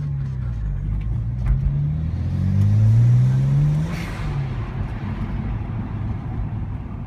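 BMW 335i's turbocharged straight-six accelerating, heard from inside the cabin, its note rising for about three seconds. As the throttle closes about four seconds in, the TiAL blow-off valve vents with a short burst of hiss, and the engine drops back to a low, steady run.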